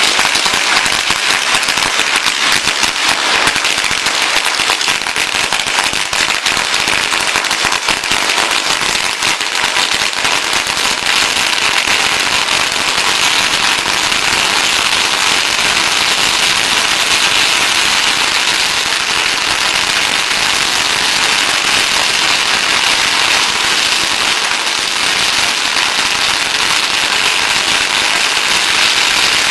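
Strings of Chinese firecrackers going off nonstop in a dense, rapid crackle of small bangs.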